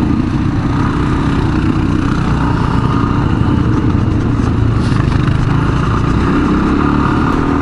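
Suzuki DR-Z400 dual-sport motorcycle's single-cylinder four-stroke engine running steadily while riding a dirt trail, heard from the bike, with a rush of wind and trail noise over it.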